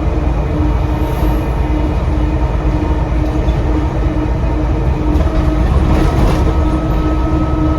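Bus diesel engine running under way, heard from inside the bus, with a deep rumble and a pulsing drone. A thin steady turbocharger whistle joins about six seconds in.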